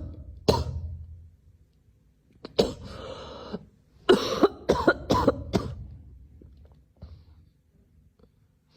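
Harsh, short cough-like bursts: one just after the start, one about two and a half seconds in, and a quick run of four or five about four to five and a half seconds in.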